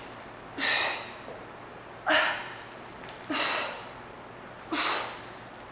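A woman's hard, forceful exhalations under exertion, one with each sandbag press: four short breaths about a second and a half apart.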